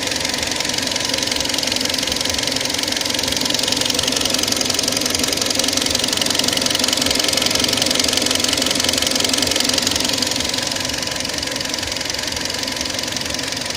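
Kia Sportage III engine running with a fast, steady knocking tick, a little louder in the middle; the knock's cause is unknown to the owner.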